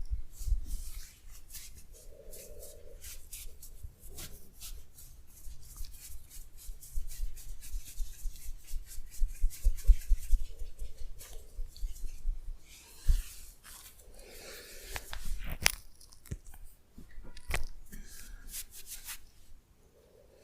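Close-up massage sounds: hands rubbing and working over skin and hair, giving many small crackles, mixed with soft low thumps from patting or pressing.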